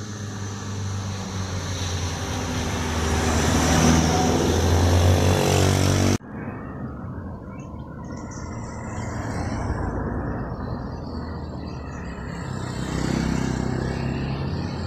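Road traffic passing close by: a car's engine and tyre noise rise to a peak about four to six seconds in and cut off suddenly, then another car passes and motor scooters approach near the end.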